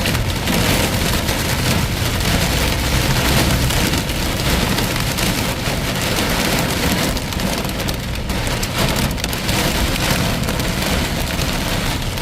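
Torrential rain pouring down steadily, a dense hiss of drops beating on hard surfaces.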